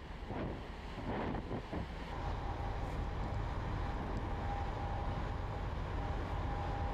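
Large car ferry's engine rumbling under way, with wind on the deck microphone. About two seconds in, the low rumble strengthens and a steady, even hum joins it and holds.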